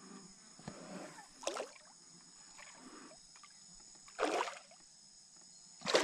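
Kayak paddle strokes: the blade splashing into the water three times, a few seconds apart.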